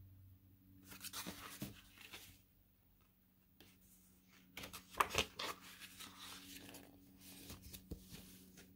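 Glossy pages of a large photobook being handled and turned: paper rustling in two spells, with sharp page snaps about five and eight seconds in.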